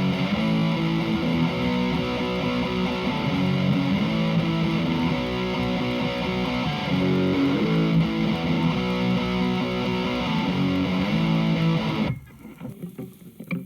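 Electric guitar played through a Hughes & Kettner Attax Metroverb 50-watt transistor amp on its overdrive (lead) channel: sustained distorted chords and riffs. The playing stops abruptly about twelve seconds in.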